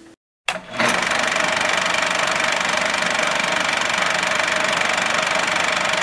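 A steady mechanical whirring at an even pitch and level, starting abruptly after a moment of dead silence.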